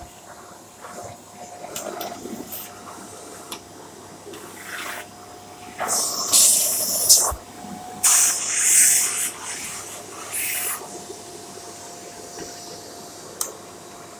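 Shark corded bagless vacuum cleaner running with a steady whine, its attachment tool giving several loud hissing rushes of air, the loudest between about 6 and 9.5 seconds in.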